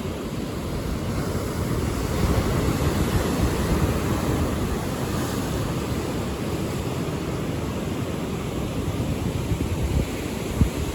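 Ocean surf heard from a pier: a steady rushing wash of breaking waves, with wind rumbling on the microphone. A short knock sounds near the end.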